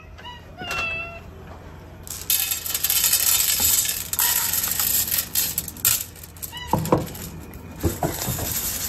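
Cats meowing, then dry cat kibble pouring and rattling onto a large stainless-steel tray for several seconds, with a few knocks of the tray near the end.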